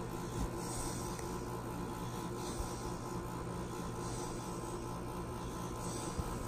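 Steady low electrical hum with a faint hiss, and soft airy hisses recurring every second or two.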